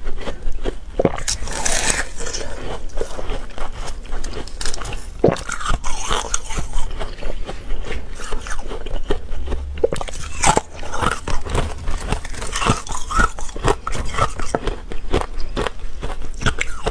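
Hard ice being bitten and chewed, with irregular sharp crunches throughout.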